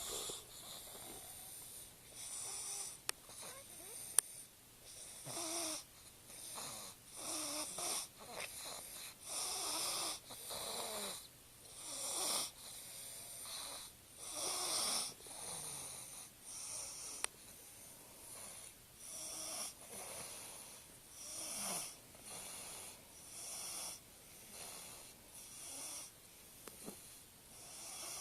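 A young boy snoring in his sleep: a rasping snore on each breath, about one breath a second, steady and rhythmic. A sharp click about four seconds in and a fainter one near the middle.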